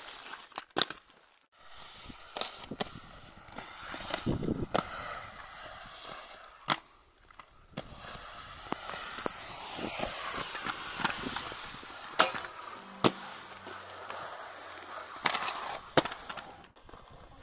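Inline skate wheels rolling over the skate park surface, with a string of sharp clacks from landings and hits on obstacles, spaced irregularly a second or more apart.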